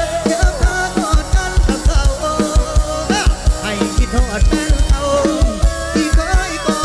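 Background music: a song with a steady drum-kit beat and a melodic vocal or lead line.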